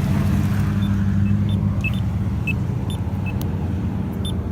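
Steady low hum of a car driving, heard from inside the cabin, with a few faint short high blips over it.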